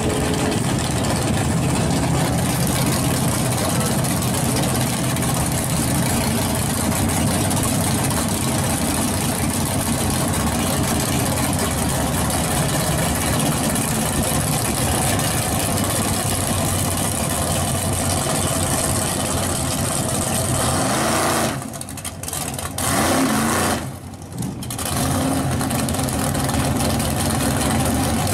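Drag-prepared G-body Chevrolet Monte Carlo's engine running loudly and steadily at the start line. The sound drops away briefly twice near the end.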